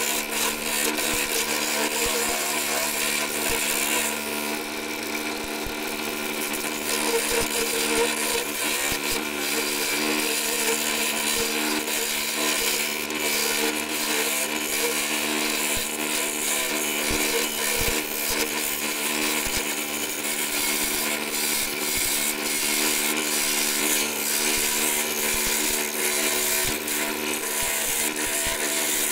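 Wood lathe running with a steady motor hum while a turning gouge cuts into a spinning wooden bowl blank, giving a continuous scraping, shaving cut.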